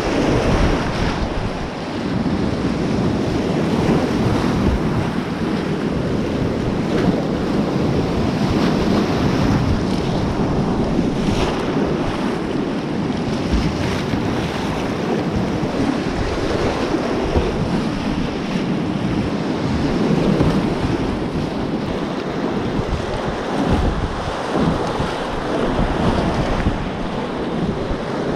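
Whitewater rapids rushing and churning around a kayak, heard close to the water as a loud, steady rush.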